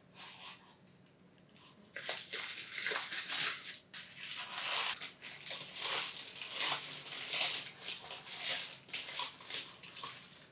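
Black tissue paper crinkling and rustling in quick irregular crackles as a hand grinder's steel body is unwrapped by hand, getting loud about two seconds in.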